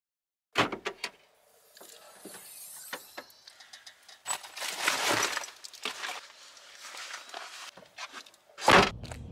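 Gear being handled close to the camera: rustling, scattered clicks and light jingling, with a louder stretch of rustling about halfway through and a single loud thump near the end.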